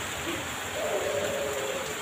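Heavy rain falling steadily. About a second in, a bird gives a low hooting call lasting about a second, with a shorter hoot just before it.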